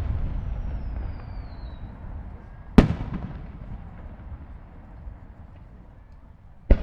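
Aerial fireworks shells bursting: the rumble of a loud burst dies away, then one sharp bang about three seconds in and another near the end, each trailing off in a long rolling echo.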